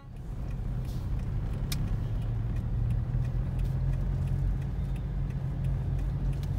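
Steady low engine and road rumble heard from inside a car in slow city traffic, with faint light clicks now and then.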